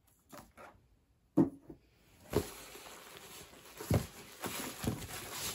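A sharp knock, then hands rummaging in a cardboard box, with bubble wrap and cardboard rustling and a few soft thumps.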